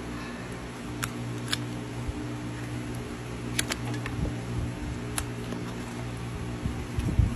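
Steady low mechanical hum, like a fan, with a few sharp clicks from hoof-knife work on a horse's hoof sole. A burst of low rumbling comes near the end.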